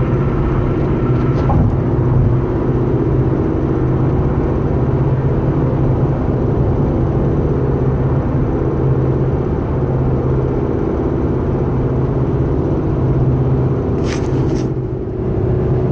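2011 Honda Civic running with a steady, unchanging hum: the unexplained humming noise its owner is asking mechanics to identify. A brief hiss comes near the end.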